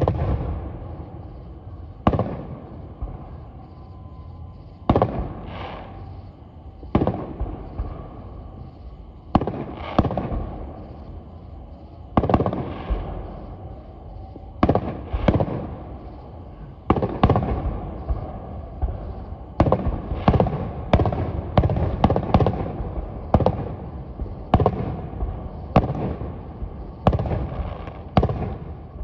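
Aerial fireworks shells bursting in the sky, each a sharp bang with a rumbling tail. The bangs come every two to three seconds at first, then follow in quick succession in the second half.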